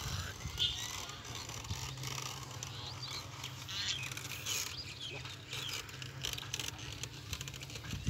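Small birds chirping and trilling several times over a steady low hum and faint outdoor rustle.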